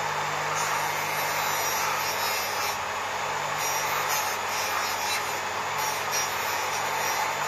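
Bench grinder motor running steadily with a low hum while a motorcycle fork leg is held and turned against its fine abrasive wheel, the wheel scuffing the metal's surface to key it for new paint.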